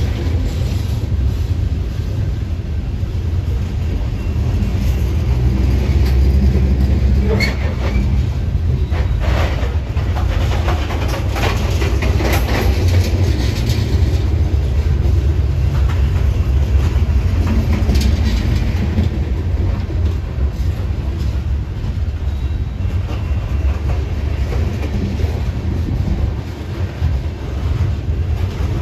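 Loaded coal train's steel wheels rolling over the rail as a string of open-top coal cars passes close by: a steady, heavy rumble with scattered sharp clicks, most of them in the middle stretch.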